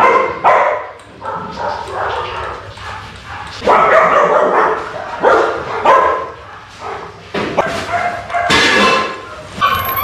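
Dogs barking and yipping over and over in short, irregular calls.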